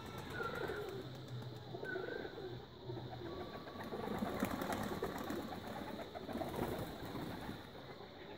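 Domestic pigeons cooing nearby, repeated low warbling calls about a second apart, with a stretch of busier clattering noise in the middle.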